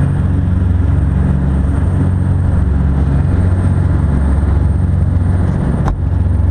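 Charter fishing boat's engine running at a steady speed, a loud low hum under a rush of wind and water. A single sharp click sounds near the end.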